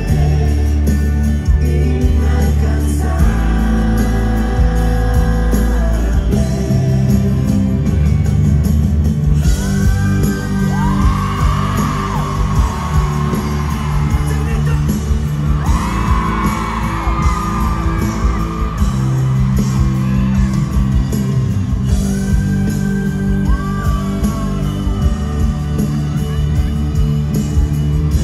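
Live pop-rock ballad played loud through a stadium PA, heard from the crowd: full band with heavy bass, and a male lead singer's long, bending vocal runs in the middle stretch. Fans yell over it.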